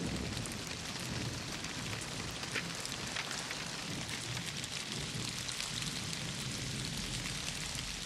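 Steady rain falling hard and pattering on surfaces, with a low rumble underneath.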